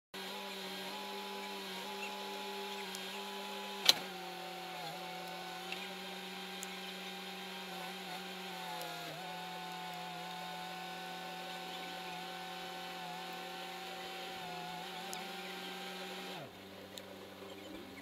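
An engine running steadily at high speed, its pitch dipping briefly a few times. Near the end its pitch and level drop sharply as it slows. A single sharp knock comes about four seconds in.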